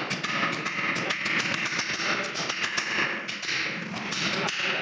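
Repeated metallic taps of a hammer on a chisel held with pliers against a stripped wheel nut, cutting into the nut to free it, several taps a second, with background music.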